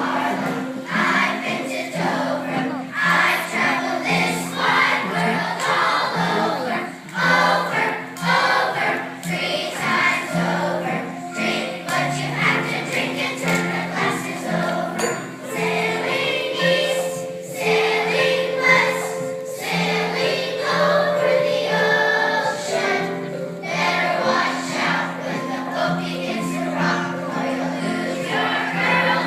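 A third-grade children's class singing an Appalachian folk song together, with steady low notes held underneath as accompaniment.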